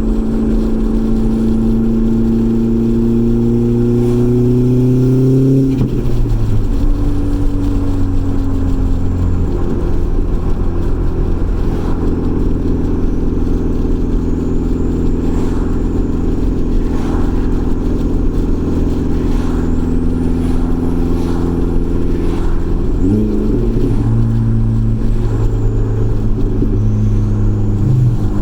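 Turbocharged four-cylinder engine of a B5 Audi A4 (stock K03 turbo at maximum boost) driving on the road: the revs climb for the first six seconds or so, drop sharply, then hold steady, with another change in engine pitch a little past twenty seconds.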